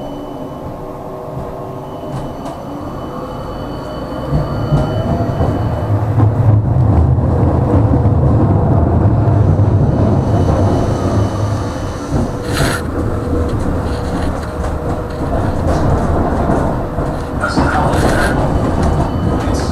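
Electric tram running along its track, heard from inside the car: the drive whines in a few steady tones, and the rumble of the wheels on the rails grows louder about four seconds in. A sharp click comes near the middle, and there is a brief high screech near the end.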